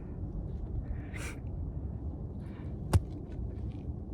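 Low rumbling noise on the microphone, with one sharp click about three seconds in and a few faint ticks after it.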